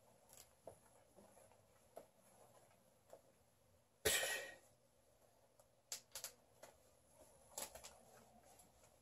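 Worn-out pants being torn apart by hand: faint clicks and small snaps of fabric and threads, with one short ripping tear about four seconds in and a few sharper snaps later.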